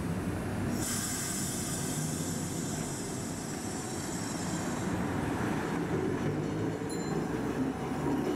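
Iyotetsu street tram No. 70 moving off from a stop and running past close by, with a steady low hum from its running gear. A high hiss starts sharply about a second in and dies away around five seconds in.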